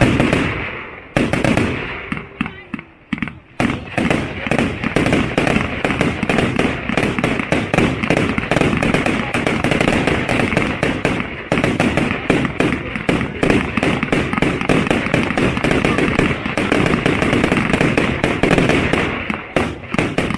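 Lesli Black Caiman 100-shot, 30 mm calibre fireworks cake firing a rapid stream of shells, bang after bang. It thins out briefly about two seconds in, then fires densely again.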